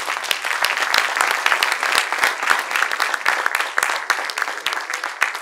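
Audience applauding, many hands clapping at once, loud and sustained.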